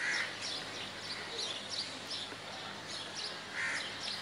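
Water poured from a plastic mug splashing into a wide pot of rice and chickpeas, once at the start and again near the end, over small birds chirping several times a second.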